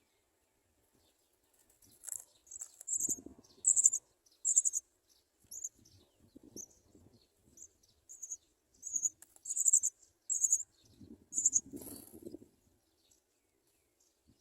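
House sparrow chicks giving short, very high-pitched begging chirps in repeated bursts. Low rustling comes in twice, a few seconds in and again near the end.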